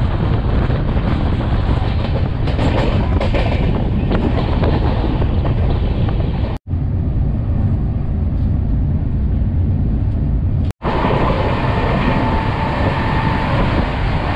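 Bhopal Shatabdi Express passenger train running at speed: a steady rumble of wheels on the rails with rushing air. The sound cuts out abruptly twice. Between those cuts it is duller, heard from inside the coach, then loud again near the end.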